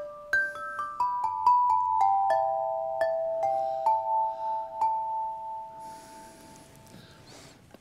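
Horizontal metal chime tubes struck with two mallets: a run of about a dozen clear, ringing notes stepping mostly downward, the last struck about five seconds in. The notes are then left to ring and fade away.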